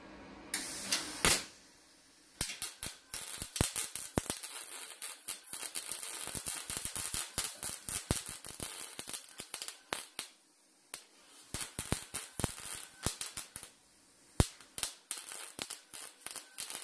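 MIG welder running short bursts of crackling, spitting welds into thin sheet steel, a replacement panel on a 1967 VW Type 2 bus body. The arc stops briefly a few times between passes.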